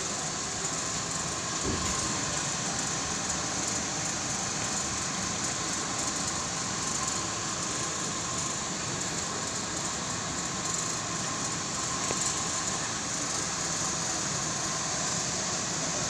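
Air conditioner indoor unit running, its fan blowing a steady rush of air with a faint steady hum.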